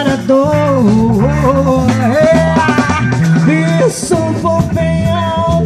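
Band music: a pop-rock song with a sliding, bending melody line over a steady repeating bass line.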